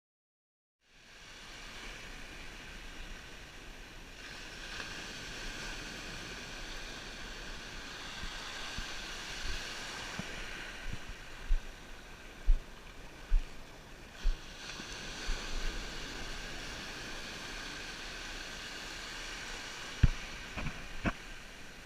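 Sea surf washing steadily, with several sharp thumps on the microphone about halfway through and again near the end.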